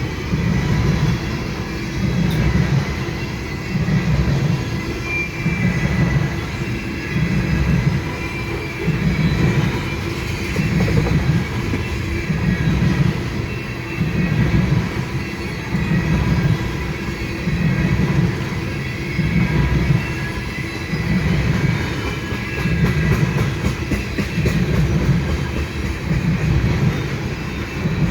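Train cars rolling past, a loud low rumble that pulses about every second and a half as wheel sets cross the rail joints, with a faint thin squeal of wheels above it.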